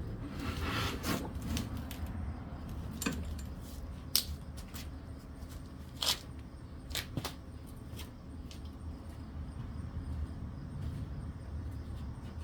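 Small parts and tools being handled: a short rustle near the start, then a few scattered sharp clicks and clinks, the loudest about four seconds in, over a low steady hum.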